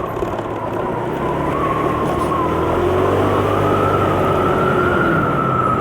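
A 125cc motor scooter running on the move: a steady high whine over a low drone and rushing wind noise, the whine rising a little and settling again as the speed changes.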